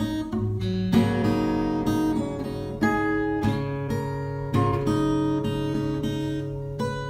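Background music: a strummed acoustic guitar playing chords, a new chord struck about once a second.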